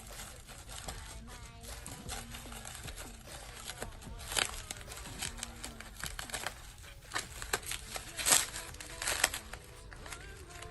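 Crinkling and rustling of a package being handled and opened, with sharp crackles and taps; the loudest come about four, eight and nine seconds in.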